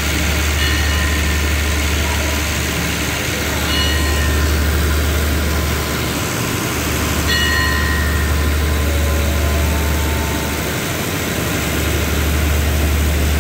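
Diesel passenger train standing at a station platform with its engines idling: a steady low hum.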